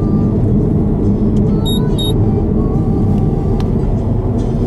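Steady road and engine noise inside a car's cabin while driving at speed on an expressway, with two short high beeps about a second and a half in.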